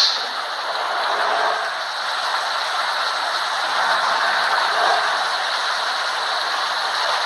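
Steady noise of a moving road vehicle, with rattling.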